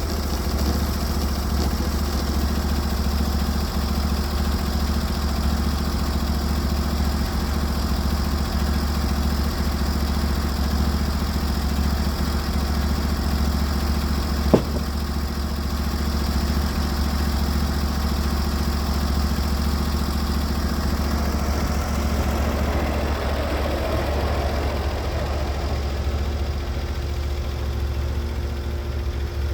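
Norwood HD36v2 portable sawmill's engine running steadily, with a single sharp click about halfway through.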